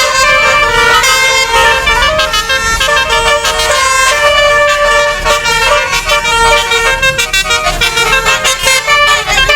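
A bus's multi-trumpet 'telolet' musical horn of the Basuri type playing a tune: several horn tones sounding together and switching notes in quick succession without a break.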